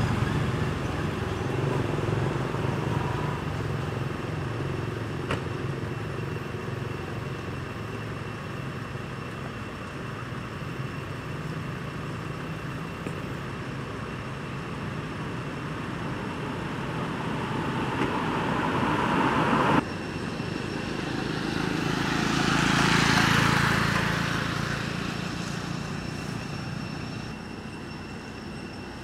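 Motor vehicle engine noise, a low drone that builds and breaks off suddenly about two-thirds of the way in. Another vehicle then swells and fades as it passes.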